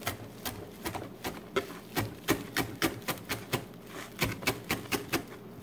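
Chef's knife chopping fresh parsley on a plastic cutting board: quick, regular knocks of the blade on the board, about three a second, as the parsley is minced.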